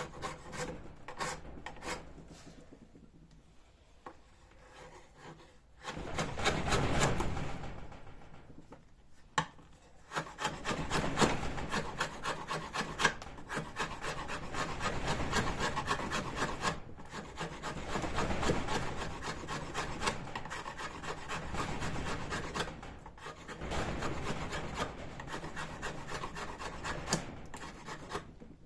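Rasping, rubbing sound of wood being worked, quieter at first, then coming in a burst and running on in long uneven stretches.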